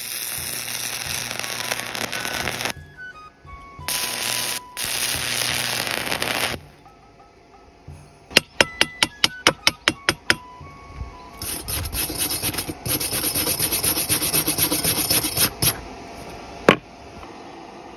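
Stick (MMA) arc welding on steel plate with a 100 V inverter welder (EENOUR MIG120L): the arc's crackling hiss comes in three bursts of a few seconds each, stopping and restarting, with a quick run of about ten sharp clicks between the second and third bursts and a single sharp click near the end.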